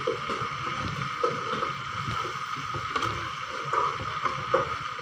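Chicken feet frying in a pan with a steady sizzle, with light scrapes and knocks of the utensil against the pan as they are stirred.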